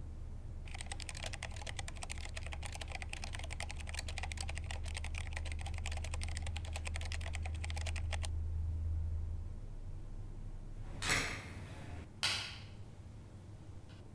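Rapid computer-keyboard typing, a dense run of clicks lasting about seven and a half seconds, over a low steady hum that stops soon after. Near the end come two short, loud noise bursts about a second apart.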